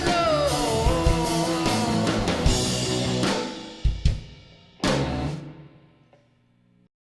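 Closing bars of a rock song: a singer over a full band with drum kit, then the band stops, a couple of sharp drum hits, and one last crashing hit that rings out and fades to silence.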